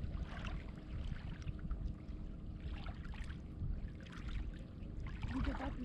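Low rumble with irregular water lapping and splashing at the river's edge.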